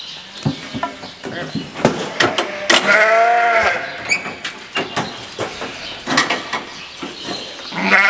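A sheep bleats once, a long wavering call about three seconds in, among scattered metallic knocks and rattles from the sheep handling crate as a ewe lamb is squeezed in for hoof trimming.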